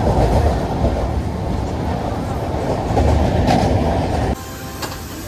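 Moving train's wheels rumbling and clattering on the rails, loud and steady, dropping off suddenly about four seconds in.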